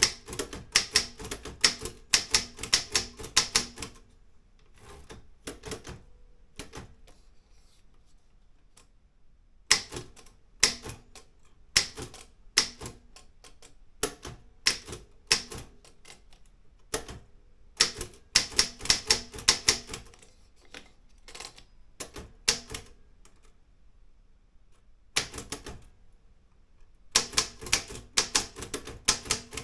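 Keys of an Olympia M8 typewriter being struck in runs of rapid, sharp clacks, with short pauses and a few scattered single strokes between the runs.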